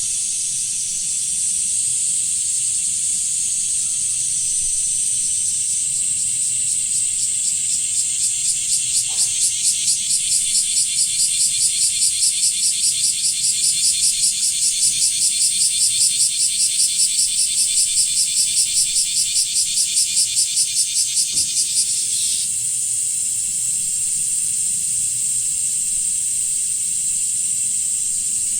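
A chorus of cicadas makes a steady high hiss. Over it, a nearby blackish cicada's pulsed 'shah-shah' song starts about six seconds in, throbbing a few times a second, and cuts off sharply a little past the middle.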